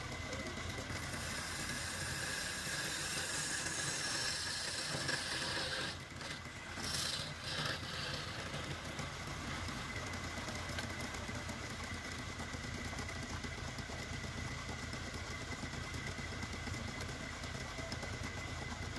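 Wood lathe running steadily with a constant high whine, while a hand-held turning tool scrapes and cuts the spinning wood. The cutting gives a bright hiss through the first several seconds and again briefly about seven seconds in.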